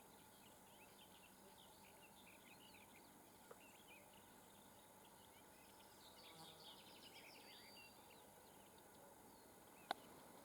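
Faint birdsong: many short chirps from several small birds over a quiet background, busiest a little past the middle. A single sharp click near the end.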